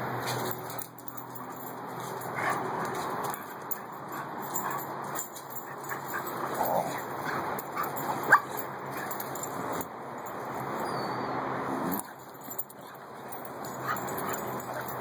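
A Rhodesian Ridgeback puppy and a Shar-Pei playing rough, giving short dog cries every few seconds, the sharpest a little past halfway.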